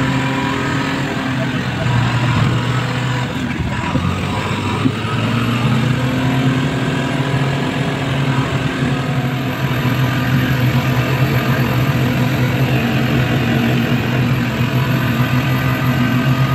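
Laden goods truck's engine running steadily while driving along the highway, with a droning hum and road noise heard from inside the moving truck.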